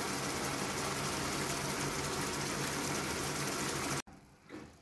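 A steady rushing noise with a low hum that cuts off abruptly about four seconds in.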